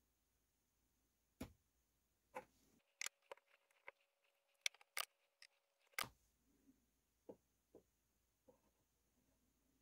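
Scattered sharp clicks and light taps of a Blaurock Blades BRB4 XL folding knife being handled and set on and lifted off the platform of a digital scale. There are about a dozen of them, bunched in the middle, over otherwise near silence.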